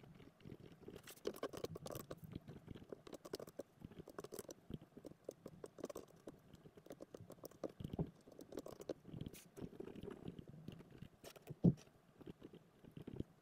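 Pen writing on a lined paper pad, with scratching strokes and small taps, mixed with clicks of a scientific calculator's keys. One sharper knock comes a little before the end.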